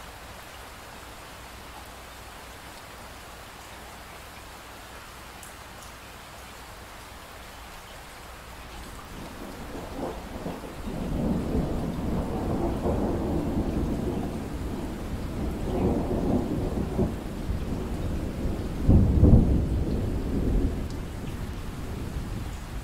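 Steady rain, then a long roll of thunder that builds about nine seconds in, swells more than once and is loudest near the end before easing off.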